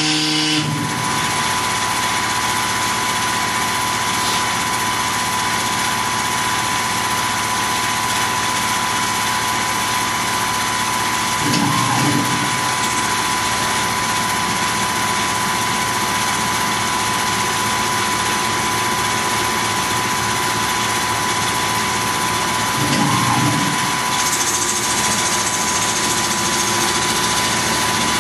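Tormach PCNC 1100 CNC mill with its Duality lathe attachment running a facing program on brass spacers: a steady spindle whine over machine hum and hiss. A pitched machine sound cuts off just under a second in, and two short swells come about eleven seconds apart.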